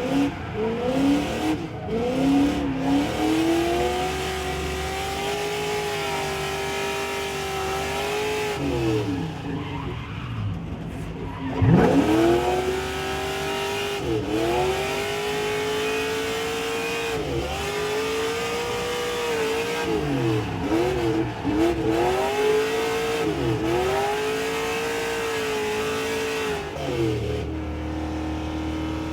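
Race car engine heard from inside the cabin while driven hard on track, pulling up through the revs and dropping at each gear change. There is a sharp rev blip on a downshift about twelve seconds in, and the engine settles to a steady drone near the end.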